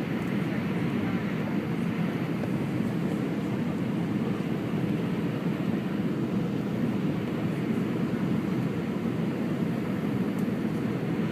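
Steady cabin noise inside an Airbus A319 in flight: the even rush of engines and airflow, a low rumble that holds at one level.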